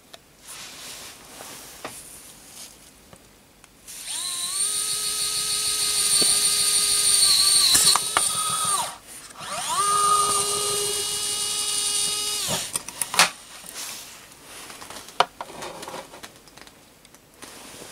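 The small motor of an ES121 electric screwdriver spins a fine drill bit held in a pin chuck, drilling into a circuit board. It makes a steady whine in two runs of about four and three seconds, each rising quickly as the motor spins up and cutting off sharply. A few light clicks follow as the tool is handled.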